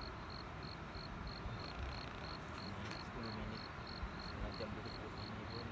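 An insect in the grass chirping steadily, a high-pitched pulse repeated about three times a second, in the manner of a cricket.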